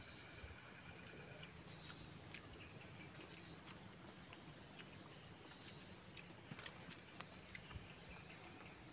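Near silence: faint, scattered small clicks and ticks over a quiet outdoor background.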